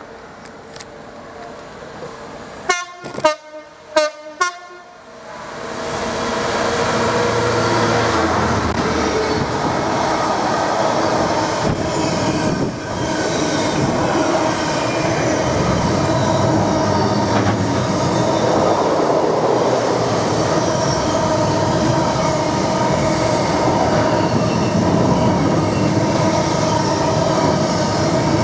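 A train horn gives four short blasts. About five seconds in, a freight train passes at speed with a loud, steady rush of wheels on rail.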